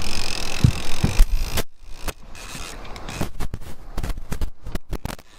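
A steady rushing noise with a few low thumps, cut off suddenly after about a second and a half, then a run of irregular sharp clicks and knocks.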